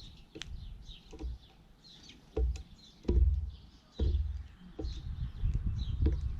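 Birds chirping in short, repeated high calls, with several sharp clicks and a few loud low thuds in between.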